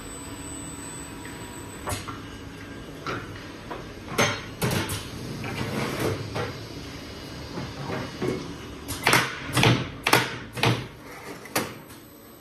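Semi-automatic demoulding machine for polycarbonate chocolate moulds at work: its pneumatic mechanism and the hard plastic moulds give a series of sharp knocks and clacks over a steady machine hum. A few clacks come early, then a louder cluster of knocks comes about nine to eleven seconds in.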